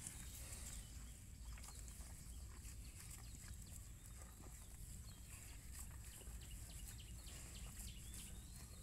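Cattle grazing close by: faint, scattered short tearing and crunching clicks of grass being cropped, over a low rumble and a steady high hiss.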